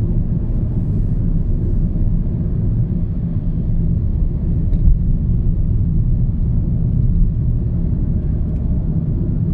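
Car on the move: steady low engine and road rumble, heard from inside the cabin.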